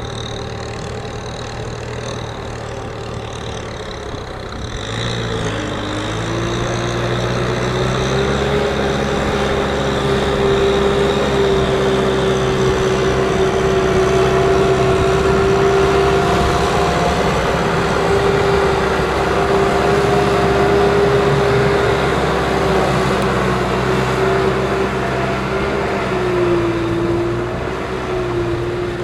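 Kubota M6040SU tractor's four-cylinder diesel engine working under load, hauling a loaded trailer through deep water and mud. It revs up about five seconds in, then holds a steady pitch, with a brief dip near the end.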